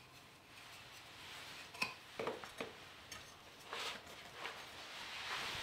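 Quiet handling noises as a thin wooden platform is turned in the hands and set down into a foam box insert: a sharp click a little under two seconds in, a couple of soft taps just after, and light rustling around four seconds in and again near the end.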